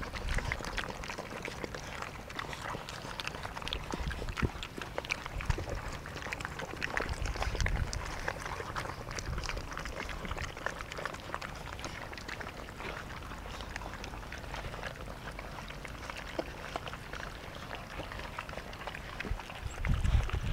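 A litter of puppies eating together from one stainless steel bowl: a busy, irregular run of small wet clicks from lapping and chewing, with ticks of teeth and tongues against the metal.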